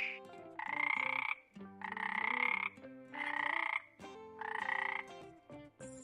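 An animal call repeated four times, each call lasting under a second with a slightly rising tone, over soft background music.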